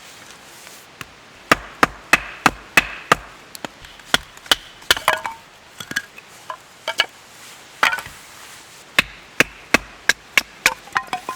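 Repeated sharp chopping strikes on wood, about three a second in runs with short pauses, some with a brief ring: firewood being split for a campfire.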